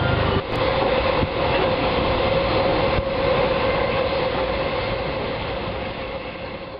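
Passenger train running, heard from an open carriage window: a steady rush of wheel and wind noise with a steady whine through it. It fades out near the end.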